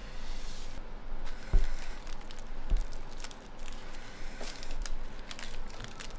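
A crisp sheet of dried nori seaweed crinkling and crackling as it is folded around a rice ball by hand. Two dull thumps on the cutting board come in the first three seconds.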